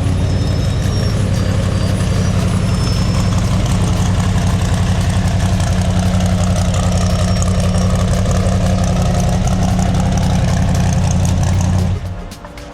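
A vehicle engine idling steadily with a low, even drone, which cuts off suddenly near the end.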